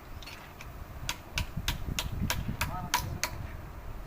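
A quick run of about ten sharp metal knocks over two seconds, with a brief ringing clink near the end: hand tools tapping and striking metal parts while a truck gearbox is being taken apart.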